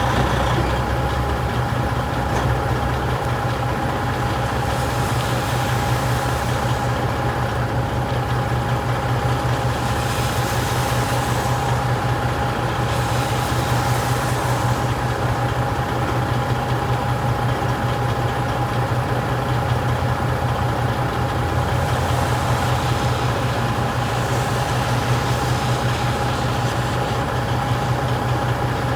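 Truck engine running steadily with a low hum and a faint steady whine above it, heard from the cab.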